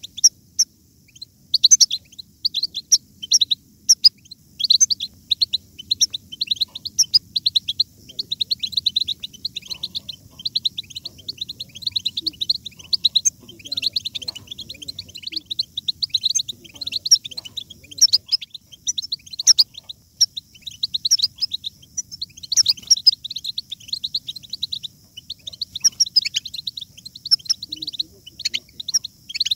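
European goldfinch song: a fast, near-continuous run of high twittering, tinkling notes, broken by brief pauses.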